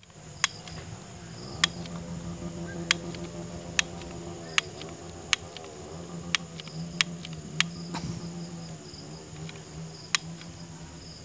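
A long-neck utility lighter's igniter clicking about once a second, being worked to light a firework fuse. Crickets chirp faintly, and a low steady hum runs underneath.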